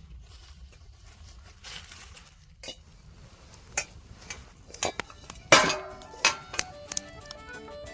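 Scattered clinks and knocks of camp cookware and utensils being handled, the loudest about five and a half seconds in. Music starts near the end.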